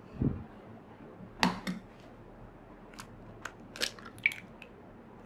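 An egg cracked on the rim of a bowl and its shell pulled apart: a dull thump near the start, then a few sharp taps and crackles of eggshell.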